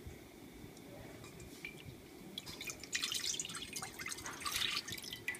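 Evaporated milk poured from a can into a stainless steel saucepan: a few faint clicks, then a stream of liquid splashing into the pot from about two and a half seconds in, loudest near the end.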